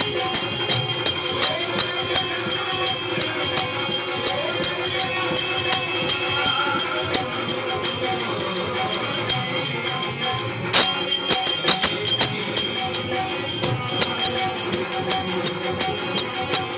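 Devotional music on a harmonium, with metallic bell-like jingling keeping the beat.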